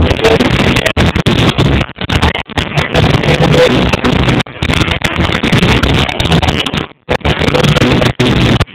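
Loud, distorted music with a heavy low bass, cutting out briefly a few times.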